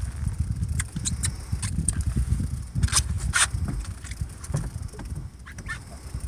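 Wind rumbling on the phone's microphone, with a handful of short sharp clicks from the rod and reel being worked during the fight with the fish; the two loudest clicks come about three seconds in.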